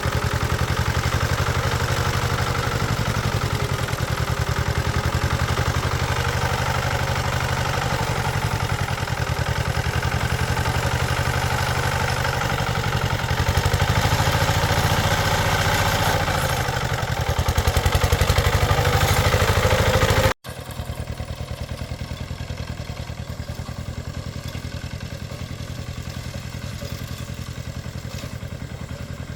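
A small engine running steadily with a fast pulsing beat, getting louder for a few seconds. About twenty seconds in the sound cuts off abruptly and comes back quieter, still a steady engine.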